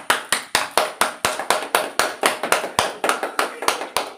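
A few people clapping their hands, quick and even, about five to six claps a second.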